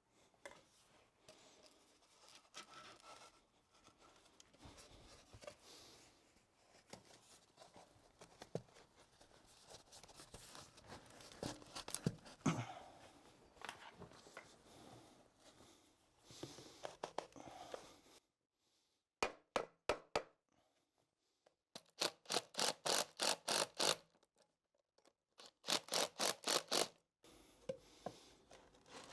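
Handling of PVC drain pipe and fittings with primer and cement cans: faint scattered rubs, scrapes and light knocks. In the last third come three bursts of rapid, evenly spaced clicks, about four a second, with dead silence between them.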